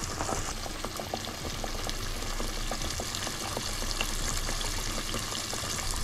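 Breaded fish fillets frying in a shallow layer of hot oil in a saucepan: a steady sizzle with many small crackles and pops.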